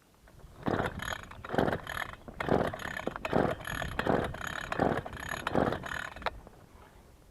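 Recoil starter of a two-stroke Champion T516 trimmer engine, mounted on a homemade outboard, pulled again and again: about seven quick pulls with a ratcheting whir, the engine cranking but not yet catching.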